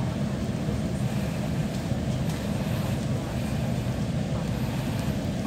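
Steady low rumble inside a bus cabin, the engine running.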